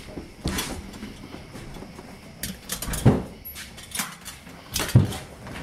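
Things being moved about by hand inside a car's footwell: a string of short knocks and rattles, the loudest about three seconds in and another just before five seconds.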